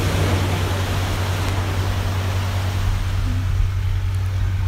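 Surf washing against a rocky shore, swelling and then fading in the first second or two, over a steady low hum.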